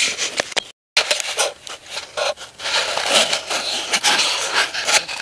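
Dry corn stalks and leaves crackling and scraping right against the camera as someone pushes through them, with a brief dropout to silence just before a second in.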